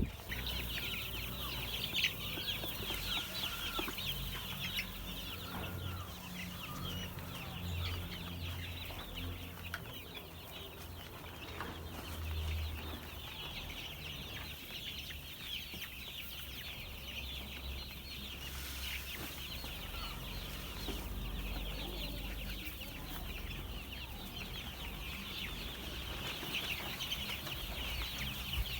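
A flock of month-old chicks peeping, many short high cheeps overlapping without a break.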